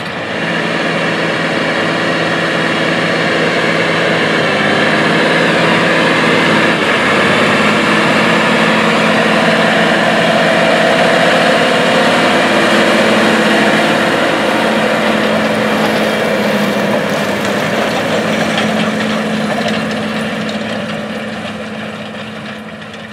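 John Deere 9470R tractor's 13.5-liter six-cylinder diesel engine running steadily under load while pulling a vertical tillage implement through the field. Its pitch shifts slightly a few seconds in, and the sound fades out near the end.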